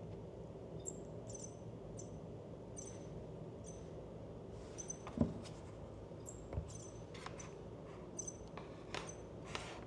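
Faint, irregular clicking of a computer mouse, a click every half second to second, with two soft knocks about five and six and a half seconds in.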